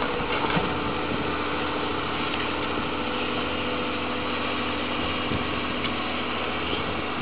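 Diesel engine of a Doosan crawler excavator running steadily at a constant pitch.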